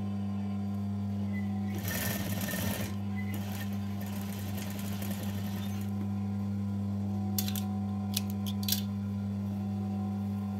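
Electric sewing machine stitching a dress's shoulder seam in short runs, one about two seconds in and a fainter, longer one from about three to six seconds, over a steady low hum. A few sharp clicks come near the end.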